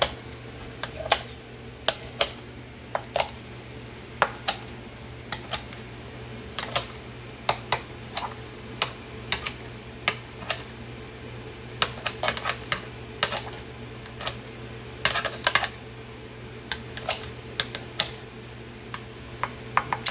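Kitchen shears snipping cooked teriyaki chicken thighs into pieces: sharp, irregular clicks of the blades closing, sometimes several in quick succession, over a steady low hum.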